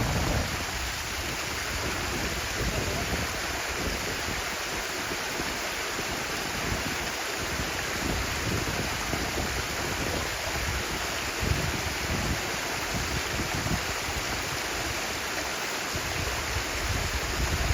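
Stream water running steadily: an even rushing hiss with irregular low gurgles.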